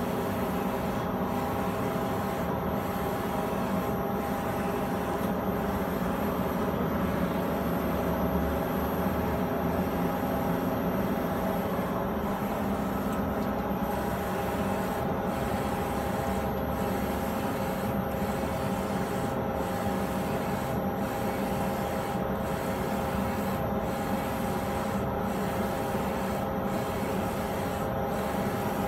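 Direct-to-garment printer running through a print, its print head carriage sweeping back and forth over the shirt with a steady whir and hum and a brief regular lull about every second and a half.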